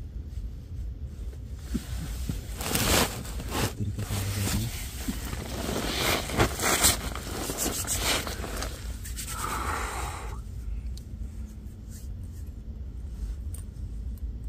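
Irregular rustling and scraping noises over a steady low rumble, busiest in the middle stretch and thinning out near the end.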